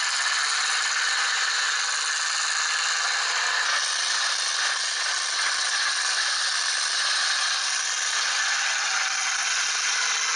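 Steady, dense rattling racket of demolition derby truck engines running in the arena, heard thin and without bass.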